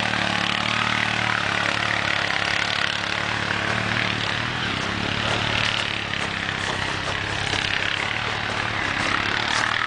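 ATV engine running steadily: a low even drone with a noisy hiss over it, no revving.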